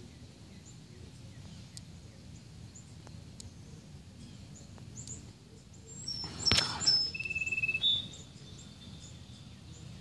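Birds chirping in the background, with a louder run of clear whistled notes mixed with a few knocks about six seconds in.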